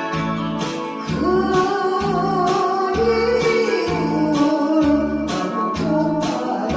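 A Korean trot-style song: a backing track with a steady beat and bass, and a singer's voice carrying the melody with vibrato from about a second in.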